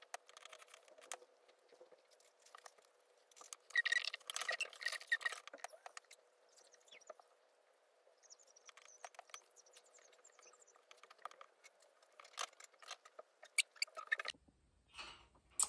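Small scissors snipping through layers of fabric to trim the bulk from a seam: faint, irregular clicks of the blades with fabric rustling, and a louder run of snips and rustles about four seconds in.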